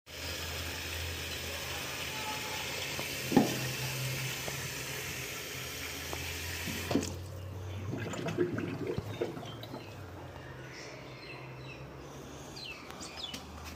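Tap water pouring from a faucet into a stainless steel sink and splashing on the drain. It stops about seven seconds in with a knock, leaving a low hum and a few small knocks.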